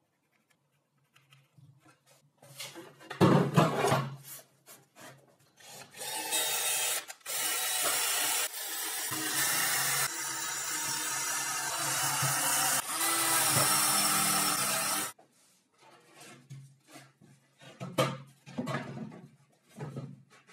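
Cordless drill boring into a laminated wooden board, running in a few stretches of several seconds with short pauses between. A few knocks come before it, and there is handling of the board afterwards.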